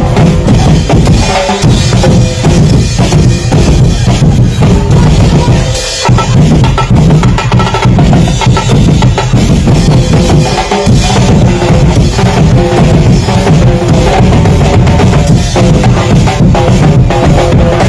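Loud drum and percussion music with bass drum and snare drum beating a steady rhythm to accompany street dancing.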